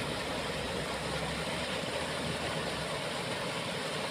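Water spilling over a low weir in a concrete channel: a steady rushing.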